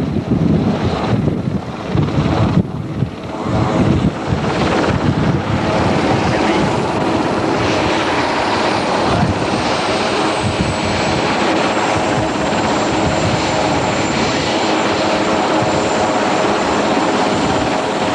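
Marine One, a Sikorsky VH-3D Sea King, with its twin turbine engines and main rotor running just after touchdown. Rotor downwash buffets the microphone for the first few seconds. After that a steady, high turbine whine holds, dropping slightly in pitch about eight to ten seconds in.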